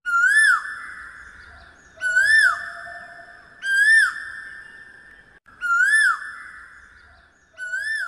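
A whistled call that rises and falls in pitch, repeated five times about every two seconds, each trailing off in a long echo.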